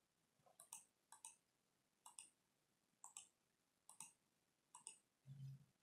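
Faint computer mouse button clicks, often in quick pairs, about once a second, as menu items are clicked. Near the end comes a brief low hum.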